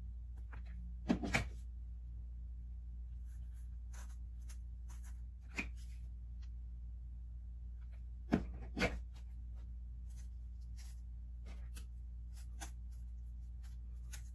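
Handling noises from craft work: light knocks and clicks as a bowl of plastic eggs on sticks is handled on a craft table, the loudest about a second in and twice close together about eight seconds in, over a steady low hum.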